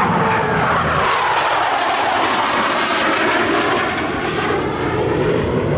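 F/A-18 Hornet jet flying past with a loud, steady jet roar, its pitch falling over the first couple of seconds as it goes by.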